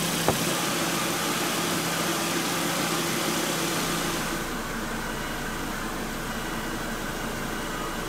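2001 Volvo Cross Country's five-cylinder engine idling steadily with its newly replaced air-conditioning compressor running and the system working. There is a short click about a third of a second in, and the sound gets slightly quieter and duller about four seconds in.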